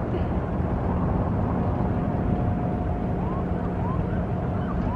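Boat motor running steadily under way, a constant low hum amid wind and water noise.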